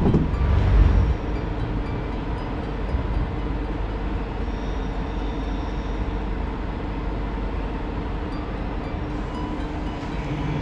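Dutch NS double-decker electric train setting off from the platform: a steady low rumble with a faint high electric whine. A louder low rumble comes in the first second.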